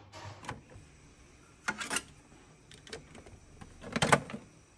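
Plastic clicks and knocks of an ink cartridge being handled and pushed into a Ricoh inkjet printer's cartridge slot. They come in two short clusters, the first just before two seconds in and the louder one around four seconds in, with light ticks between.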